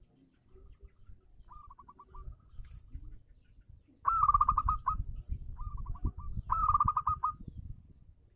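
Zebra dove (perkutut) cooing: quick runs of short rolling coo notes. Two loud phrases come about four and six and a half seconds in, with fainter ones before and between them.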